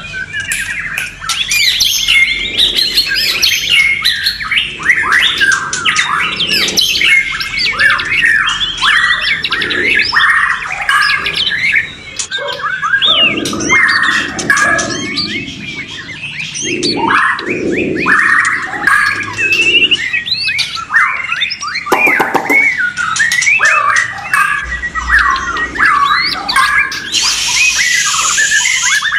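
Caged white-rumped shamas singing in a dense, overlapping stream of loud whistled phrases, quick trills and harsh calls, more than one bird at once. A harsh, hissing rasp cuts in near the end.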